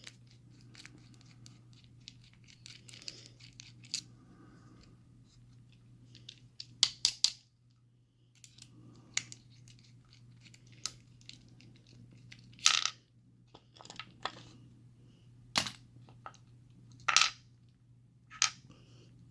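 Screwdriver clicking, tapping and scraping on the metal of a padlock while trying to work it apart, in scattered irregular strokes, with a few sharper clacks in the second half. A steady low hum runs underneath.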